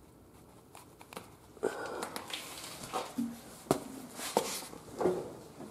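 Footsteps on a concrete floor with rustling and handling noise: a string of soft, irregular scuffs and clicks that starts a couple of seconds in.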